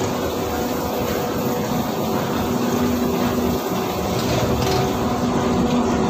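Steady mechanical rumble and hum of a metro station escalator shaft, with a few faint steady tones running through it.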